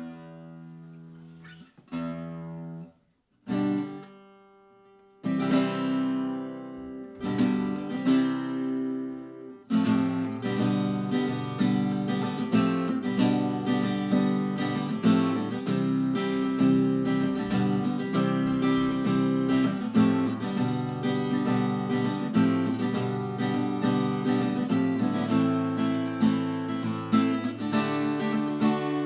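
Yamaha APX3 acoustic-electric guitar played: a few separate chords strummed and left to ring out, then from about ten seconds in, continuous rhythmic strumming.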